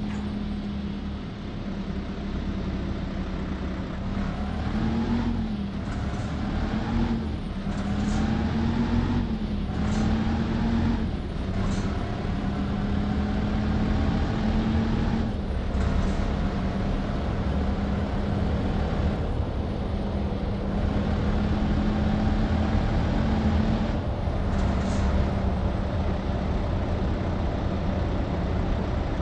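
Heavy truck's diesel engine running under a heavy towing load, a steady drone. Its note wavers and breaks off briefly several times, most often in the first half.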